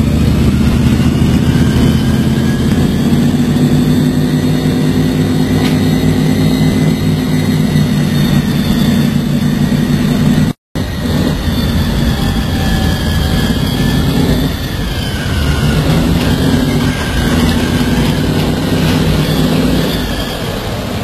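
Landing craft's engine running steadily with a low drone, with a brief moment of silence about halfway through.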